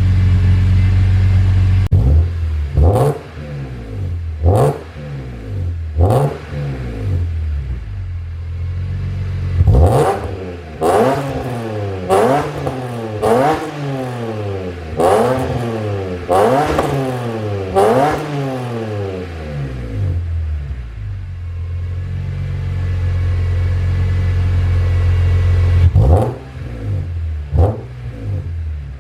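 BMW E46 M3's S54 inline-six, running through catless headers, Yonaka section 1 pipes and an unresonated X-pipe, idling and free-revved in place. There are a few sharp throttle blips, then a run of quick revs rising and falling one after another, a settle back to idle, and more blips near the end.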